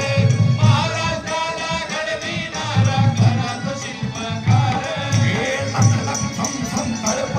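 Live Marathi powada (folk ballad) singing carried over a loudspeaker system, with a steady, heavy drum beat and jingling percussion.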